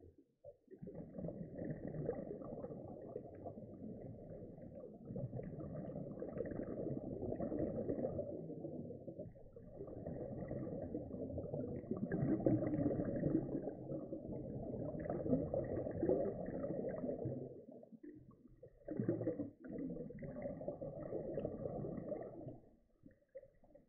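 Muffled underwater rumble of scuba divers' exhaled bubbles from their regulators, heard through the camera's underwater housing, in long stretches of several seconds with short breaks between breaths.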